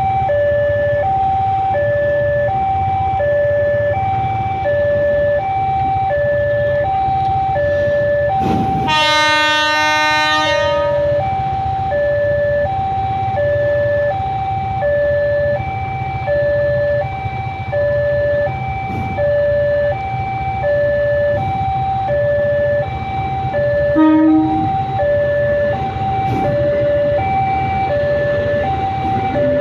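Railway level-crossing warning signal: an electronic two-note alarm alternating steadily, each note held about half a second, over a low rumble of idling motorbike engines. About nine seconds in, a loud horn sounds for about two seconds, and a short horn toot comes about two-thirds of the way through.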